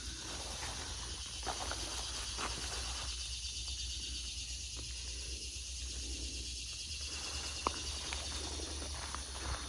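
Steady high insect chorus, with a person's footsteps on sand and dry vegetation during the first few seconds and again near the end.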